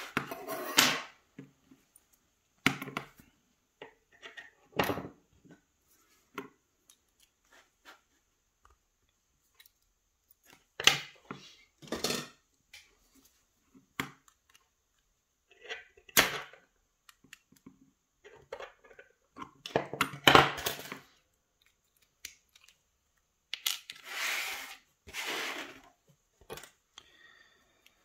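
A brass lock cylinder being taken apart by hand with pliers on a plastic pinning tray: scattered metal clicks, taps and scrapes, with a few longer bursts of handling.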